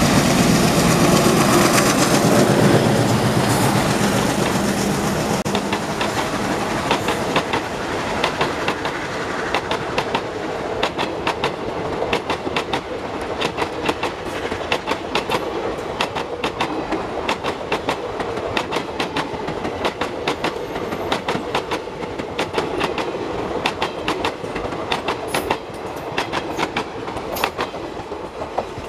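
ALCO diesel locomotive passing close with its engine running loud for the first few seconds. Then its passenger coaches roll by with a steady clickety-clack of wheels over rail joints, slowly fading as the train draws away.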